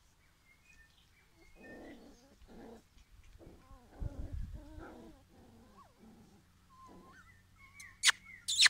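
Japanese Spitz puppies play-growling as they wrestle, in a string of short growls through the middle. Near the end come a few sharp, high chirps, the loudest sounds.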